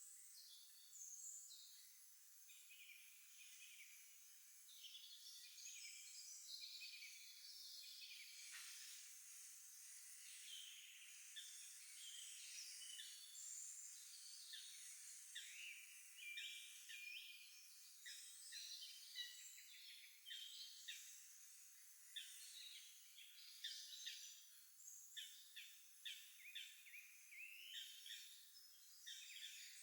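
Faint chorus of several songbirds singing: a dense run of short chirps and trills, busier in the second half, with one quick downward-falling call about eight seconds in.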